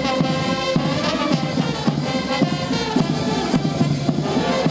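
Military band playing brass over a steady drum beat.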